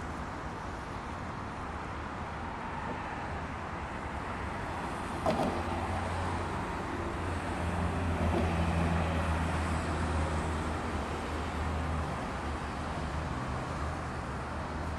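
A vehicle driving along a multi-lane highway: steady engine hum and tyre and road noise. A single sharp click comes about five seconds in, and the hum swells a little about eight to ten seconds in.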